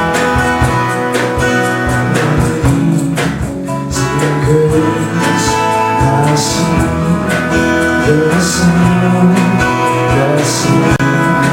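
Live praise band playing a song: acoustic guitars strumming over bass and drums, with voices singing from about four seconds in.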